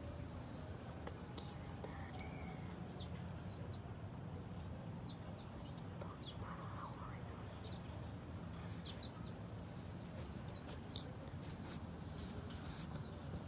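Small birds chirping in the background: quick, high, falling chirps, several in a row with short gaps, over a steady low hum.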